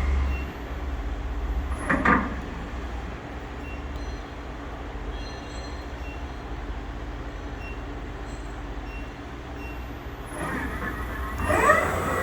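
Southwestern Industries Trak 1845SX CNC lathe running a short program: a low steady hum, a brief clatter about two seconds in, and near the end a rising whine as the machine spins up.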